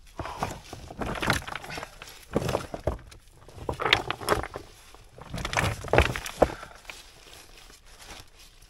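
Gloved hands pulling loose stones, gravel and dry leaves out of a rocky crevice: small stones clattering and scraping against each other and rustling debris, in four bouts that die down near the end.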